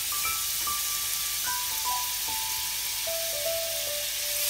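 Butter sizzling as it melts and foams in a hot frying pan, under a simple background melody of single held notes that step gradually lower.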